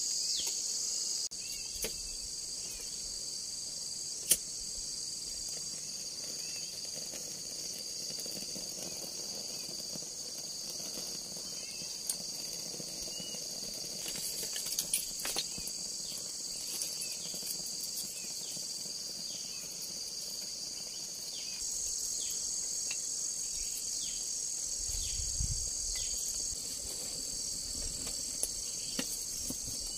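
Steady high-pitched chorus of forest insects, its layers shifting in level now and then, with a few light knocks and clicks over it.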